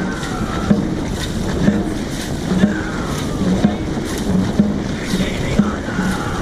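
Dragon boat crew paddling at race pace: paddles striking the water together about once a second, each stroke with a low thud and a splash, over steady wind noise on the microphone.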